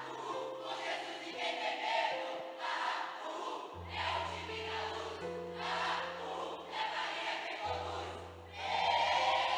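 A group of voices chanting in unison in short phrases about a second long, over sustained instrumental chords. The voices swell louder near the end.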